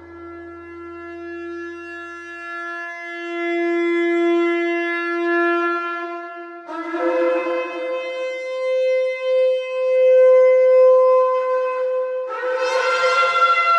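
Shofar (ram's horn) sounding long, held blasts. One note lasts about seven seconds, then the pitch jumps up to a higher note held for about five seconds, and a new, brighter blast begins near the end.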